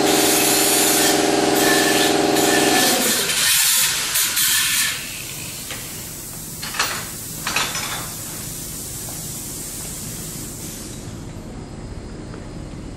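A bike motor running at a steady speed, cutting out about three seconds in. A steady hiss carries on after it, with two short knocks.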